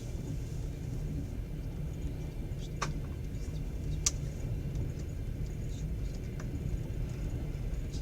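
Passenger train carriage running on the rails, heard from inside: a steady low rumble, with a couple of sharp clicks or creaks about three and four seconds in.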